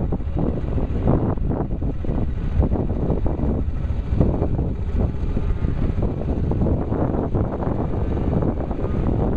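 Wind buffeting the microphone: a continuous low rumble with irregular gusty surges.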